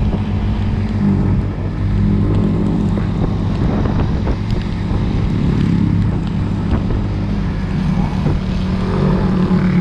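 Motorcycle engine running steadily under load while climbing a steep hill, with wind noise on the microphone.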